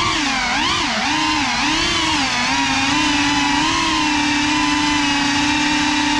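Motors and propellers of a small FPV quadcopter flying indoors, a loud whine that rises and falls with the throttle for the first couple of seconds, then holds a steady pitch.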